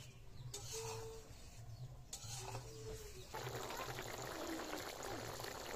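Snakehead fish curry boiling hard in an iron kadai over a wood fire: a dense, steady bubbling that comes in suddenly about three seconds in. Before it, a spoon scrapes in the pan twice.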